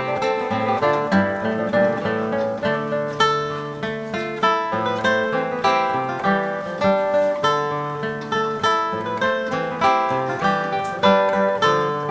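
Background music: a plucked-string instrument playing a lilting early-music piece, notes plucked in quick succession.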